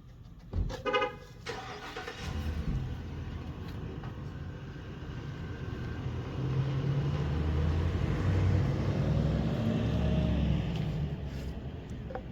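A motor vehicle's low engine rumble that swells and then fades, as of a vehicle going past, with two short pitched beeps about a second in.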